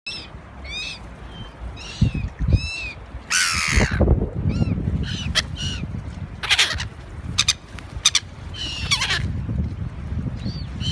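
A flock of black-headed gulls calling, with short harsh cries repeated again and again, some overlapping. A few loud rushing noises and low thumps come in between, the loudest a little after three seconds in.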